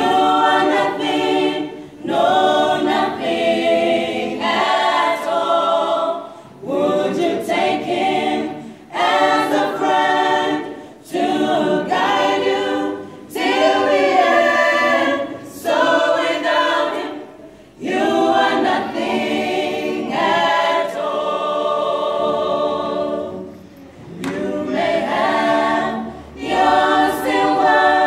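Mixed choir of young men and women singing a gospel song a cappella, with no instruments. The singing comes in phrases a second or few long, with short breaks between them.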